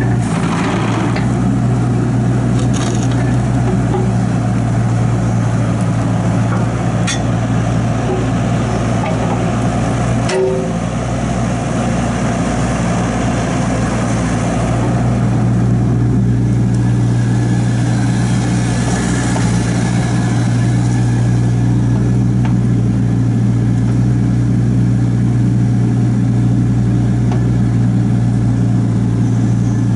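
Bobcat E26 mini excavator's Kubota four-cylinder diesel running steadily as the boom and bucket are worked, getting a little louder from about halfway through. A couple of sharp knocks come early in the first half.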